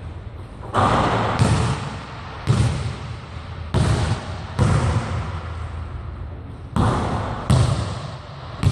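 Basketball thudding on a hardwood gym floor, about eight sharp impacts at uneven intervals, each followed by a long echo in the large hall.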